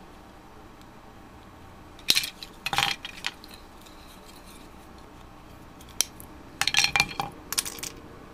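Hard plastic kit parts clicking and clattering as they are handled and set down on a table, in two short bursts with a single sharp click between them.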